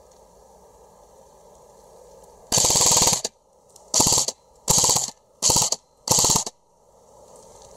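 Airsoft gun firing on full auto: a longer burst about two and a half seconds in, then four short bursts in quick succession, each a rapid rattle of shots.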